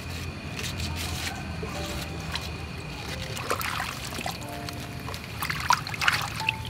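Water splashing and dripping in a metal basin as cabbage leaves are washed by hand, with a few sharper splashes in the second half.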